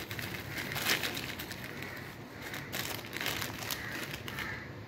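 A thin plastic bag of dried agar-agar (China grass) strands crinkling and rustling as a hand squeezes and turns it, an irregular run of small crackles.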